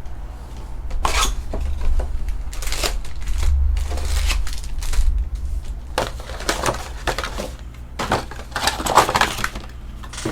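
Trading card packs and wrappers being handled and torn open: irregular bursts of crinkling and rustling over a steady low hum.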